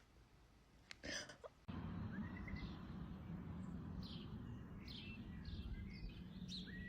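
Small birds chirping: a string of short, quick, falling chirps over a steady background noise, starting after a brief knock about a second in.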